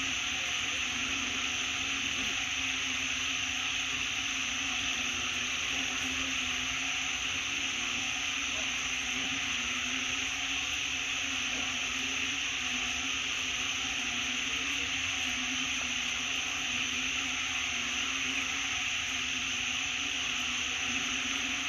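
Steady forest background: an even, high-pitched hiss with a faint low hum beneath it, unchanging throughout.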